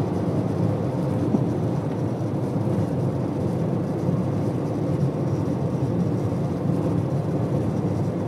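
Cabin noise of a 2013 Mitsubishi Outlander driving over a rough road: steady road and tyre rumble with a rattle from under the dashboard, one sharp tick standing out about a second and a half in.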